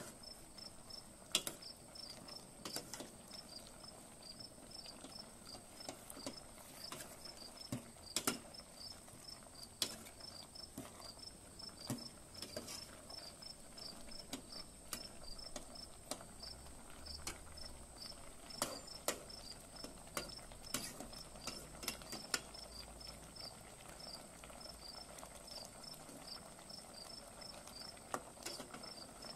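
Crickets chirping in a quick, regular pulsing rhythm over a steady high whine, with a ladle clicking and scraping now and then against the aluminium pot as the curry is stirred.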